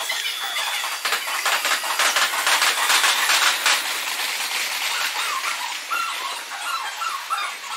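Red Meitetsu electric train running through on the tracks, played back at four times speed. A dense, rapid clatter is loudest about two to four seconds in, and high warbling squeaks follow in the second half.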